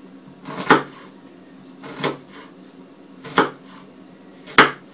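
Kitchen knife slicing an onion into thin wedges on a wooden cutting board: four cuts, each ending in a knock of the blade on the board, a little over a second apart.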